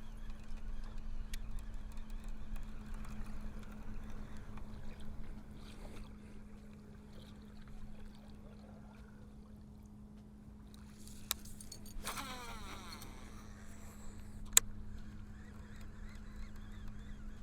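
A boat's electric trolling motor humming steadily while a big musky blade lure is cast: about 12 s in, line zips off the reel for about a second, and a sharp click follows a couple of seconds later.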